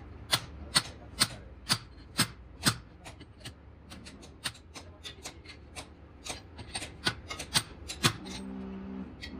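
Hammer striking steel wheel studs in a brake drum hub, driving them into the flange: sharp metal blows about two a second at first, then lighter, quicker taps. A short steady-pitched call near the end.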